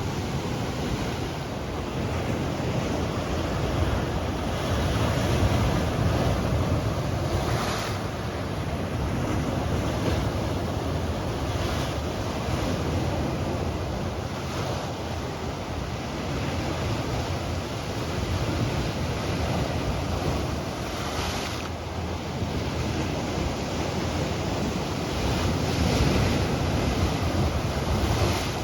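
Ocean surf: waves washing in and breaking every few seconds over a steady rush of wind.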